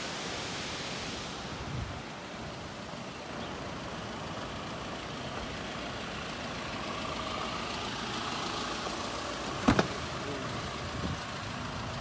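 Steady outdoor rush of noise with a vehicle's hum, broken near the end by a sharp double knock.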